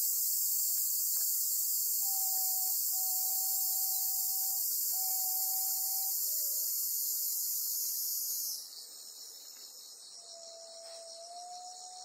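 Cicadas singing: a loud, continuous high buzz that cuts off suddenly about two-thirds of the way in, leaving a quieter insect song of fast repeated pulses.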